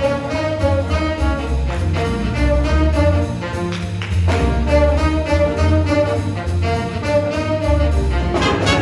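Jazz big band playing a blues: upright bass walking about two notes a second under the drums and the horn section's lines, with the trumpets coming in loud near the end.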